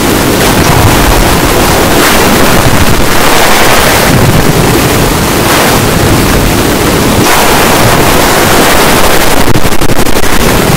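A very loud, steady roar of distorted noise with no clear tone or rhythm, like wind or surf blasting a microphone.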